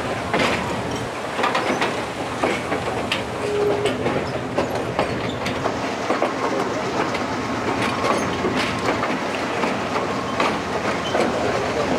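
A passenger train running along the line, heard from on board: a steady rolling rumble with the irregular clickety-clack and rattle of the wheels over the rail joints.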